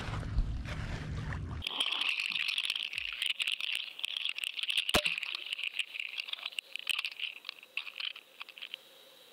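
Low rumble of wind on the shore microphone, then, after a cut, the GoFishCam underwater camera's audio as it sinks with the bait: a dense crackle with many clicks and one sharp click about halfway. The crackle thins out and gives way to a faint steady electronic hum near the end.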